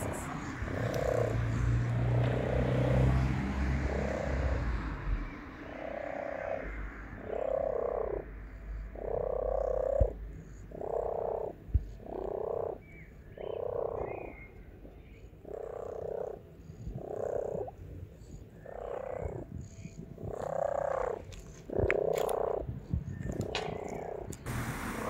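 Kitten meowing over and over, about once a second, short insistent calls of a hungry kitten begging for the food it smells.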